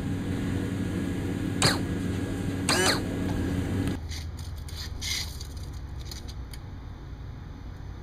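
MerCruiser Bravo 3 power trim pump motor running steadily as the drive trims up to extend the trim cylinder, with two brief scraping sounds near the middle; it stops suddenly about four seconds in. A few light clicks follow.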